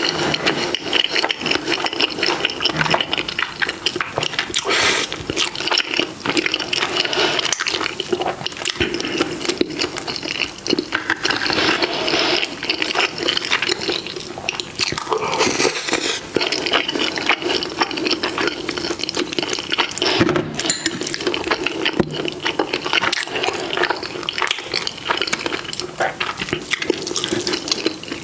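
Close-miked eating: steady wet chewing and slurping of food, a dense run of small smacks and clicks with no pauses.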